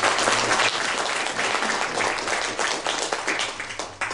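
Audience applauding after a song, many hands clapping at once, thinning out near the end.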